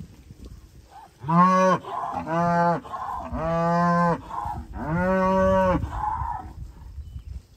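Beef cattle mooing: four calls in a row starting about a second in, each under a second or so long, the last two longer than the first two.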